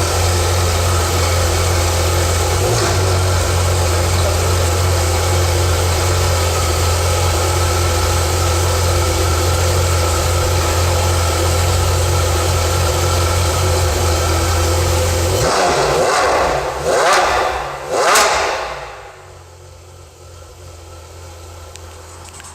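A Porsche car engine idles steadily with a strong low hum. About 15 seconds in it is revved twice in quick succession, its pitch rising and falling each time, and then the sound drops much quieter.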